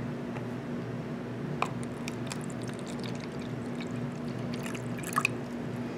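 Water poured from a plastic bottle into a clear plastic container: a quiet, steady trickling pour, with a few light clicks from the bottle and container.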